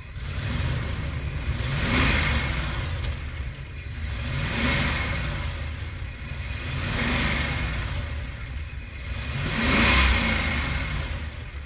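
Cars passing by one after another, four times, each swelling in loudness as it approaches and fading as it moves away.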